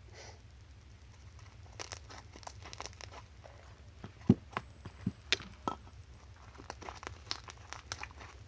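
Homemade activated slime being squeezed and stretched by hand: irregular sticky clicks and pops, a few sharper ones near the middle.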